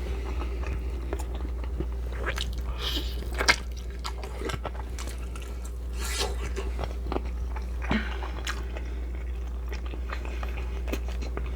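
A person chewing and biting food close to the microphone, with short wet clicks and crunches scattered throughout and one sharper click about three and a half seconds in, over a steady low hum.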